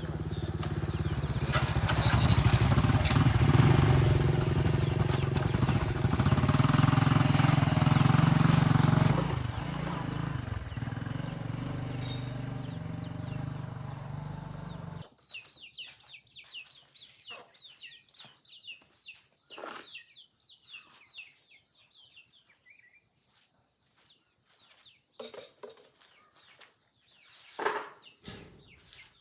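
Motorcycle engine running, growing louder over the first few seconds, then easing off about nine seconds in. After an abrupt cut about halfway, there are quiet bird chirps and a few faint clicks.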